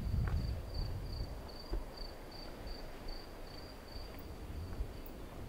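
A cricket chirping steadily and evenly, about three high chirps a second, over a low rumble.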